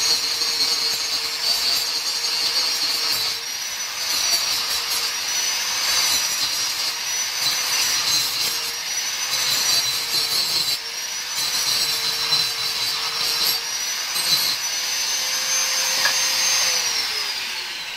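Handheld angle grinder cutting steel plate, its motor whining steadily while the rasp of the disc on the metal comes and goes as it is pressed in and eased off. Near the end the grinder is let off and the whine falls as the disc spins down.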